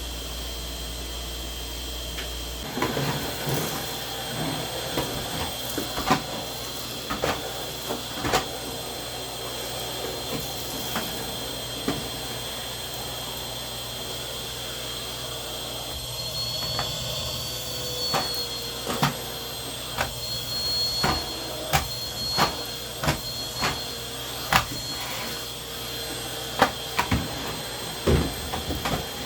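Vacuum cleaner running steadily with a constant motor whine, broken by frequent short knocks and clicks as it is pushed around.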